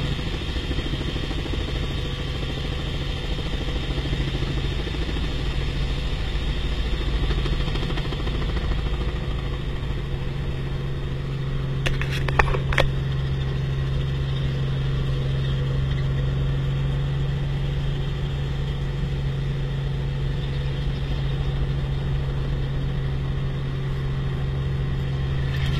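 Light helicopter's engine and rotor drone heard inside the cabin, a steady low hum held throughout. A couple of short clicks about halfway through.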